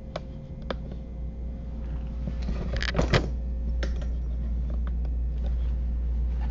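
Handling noises on a desk: a few small knocks and paper rustles, the loudest cluster about three seconds in, over a steady low hum.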